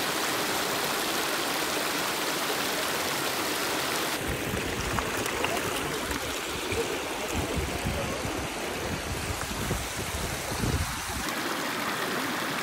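Shallow rocky creek running over stones in a steady rush. From about four seconds in the water is closer and more uneven, with a low, gusty rumble that eases near the end.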